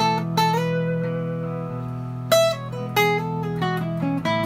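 Acoustic guitar playing a single-note solo in E major, picked notes mixing scale tones with E-chord arpeggio notes. Underneath runs a looped backing track of held chords.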